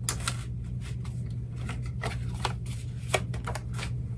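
A deck of oracle cards being shuffled by hand: a run of short, irregular crisp card snaps and slides, several a second, over a steady low hum.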